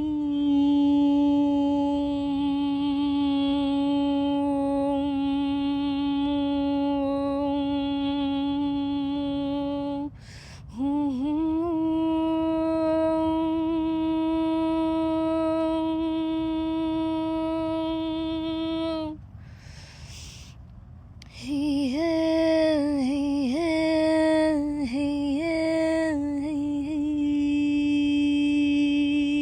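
A woman's voice toning wordless notes, each held at one pitch for up to about ten seconds. It breaks briefly for breath about ten seconds in and again near twenty seconds. After the second break the voice slides up and down through a short melodic phrase before settling into another held note.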